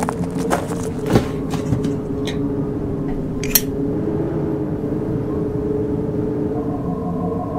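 Footsteps crunching and clattering through a heap of rubbish, several steps in the first two seconds, over a steady low drone. A single sharp click comes about three and a half seconds in, and a high held synth tone enters near the end.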